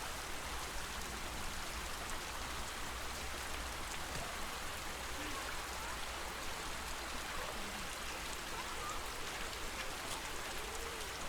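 Steady splashing and lapping of lake water, with a few faint short calls from flamingos.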